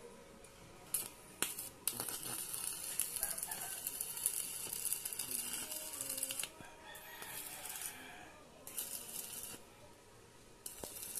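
Stick (MMA) arc welding with a Lotus inverter welding machine set to about 100 amps. There are a few short arc strikes about a second in, then the arc crackles and sizzles steadily for about four and a half seconds and stops. Two shorter bursts of crackle come later.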